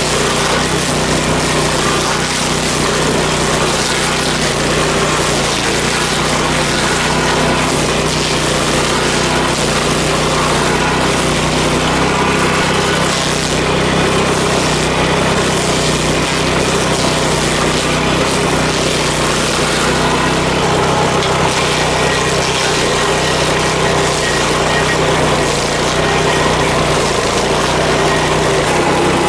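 Engine of the Power King stump grinder rig running steadily at an even level, with no pauses or changes in speed.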